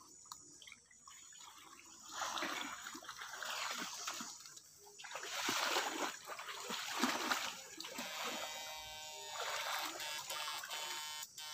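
Water splashing and sloshing as a person wades through a shallow stream, in two long stretches. For the last few seconds a steady tone of several pitches sounds over the water.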